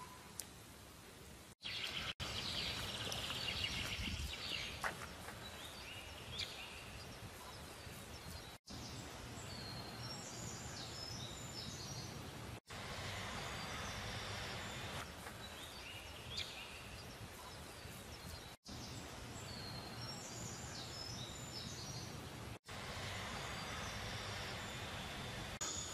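Outdoor ambience: a steady low wind rumble with small birds chirping in short high bursts now and then. It is broken by several abrupt cuts.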